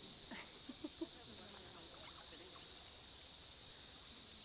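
Steady, high-pitched insect chorus, a continuous shrill hiss without a break.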